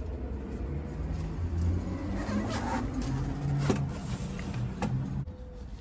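A car's engine running past on the road, its note stepping up as it accelerates, with two sharp knocks as a Bride bucket seat is handled and set down. The sound cuts off suddenly near the end.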